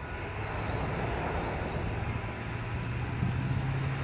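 Herzog rail train's power car, with an EMD 567 diesel prime mover, running as the train rolls slowly, its low drone rising a little in pitch in the second half, over the steady rumble and hiss of the train moving.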